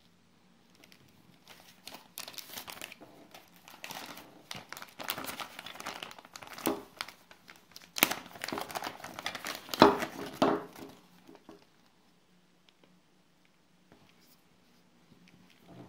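Clear plastic bag crinkling and rustling as it is handled, in irregular crackly bursts, loudest about ten seconds in and dying away a few seconds before the end.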